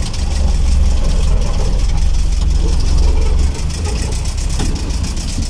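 Delivery truck's engine running as it drives, heard from inside the cab, with a deep steady rumble and light rattling. The rumble eases off about three and a half seconds in.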